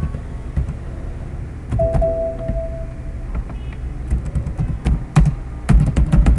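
Computer keyboard typing: a quick run of keystrokes over the last couple of seconds, with a few single clicks before it. A steady tone sounds for about a second and a half, starting about two seconds in.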